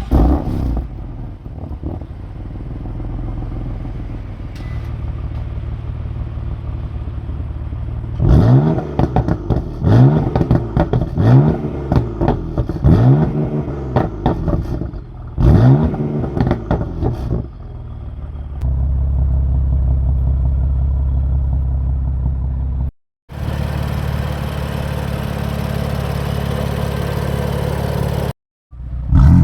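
BMW M4 Convertible's twin-turbo inline-six: it runs steadily at first, then is revved repeatedly in a series of throttle blips, each rising and falling in pitch. After that it settles into a steady drone, broken twice by brief cuts.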